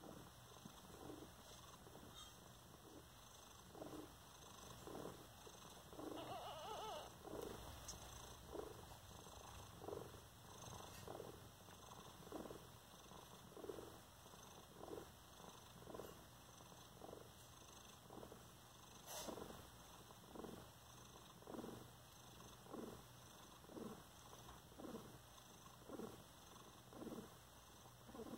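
Domestic cat purring faintly and steadily, the purr swelling and fading about once a second; the mother cat is purring while she nurses her newborn kittens.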